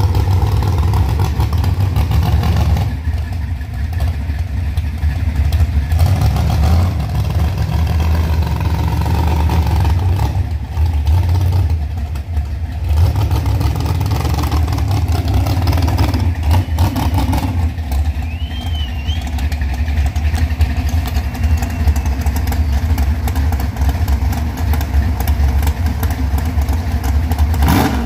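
Lifted Chevy S-10 mud truck's engine running loud with a deep rumble, revving up and easing off every few seconds as it drives through the mud.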